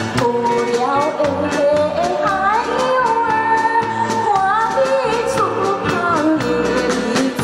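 A woman singing a Chinese song into a microphone over amplified musical accompaniment with a steady beat, her voice sliding between held notes.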